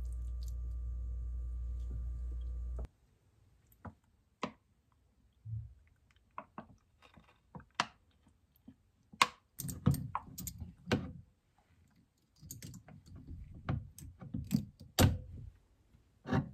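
Kitchen handling sounds: a fork and lemon slices knocking against a glass clip-top jar, then lemonade base poured from a pouch over the slices, heard as a string of uneven clicks, clinks and soft knocks. A steady hum runs under the first three seconds and cuts off suddenly.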